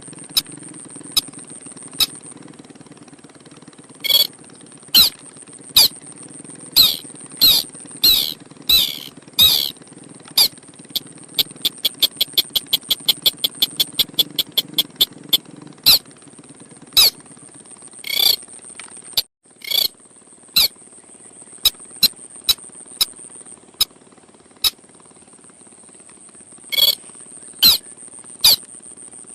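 Ruddy-breasted crake (sintar sawah) calling: hard, sharp clicking notes, some single and some in pairs. About a third of the way in they quicken into an even run of rapid notes. A steady high-pitched whine runs beneath, dropping out briefly just past the middle.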